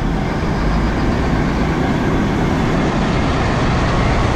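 Combine harvester running: a loud, steady engine and machinery noise.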